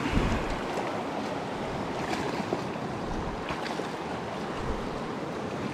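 Steady rush of a shallow river running over stones, with a brief low thump just after the start and a few faint ticks.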